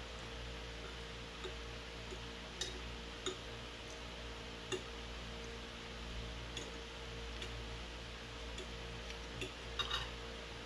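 Metal fork and knife clinking and scraping against a plate while cutting chicken: a scattering of short sharp clicks with a quick cluster of the loudest near the end, over a steady low hum.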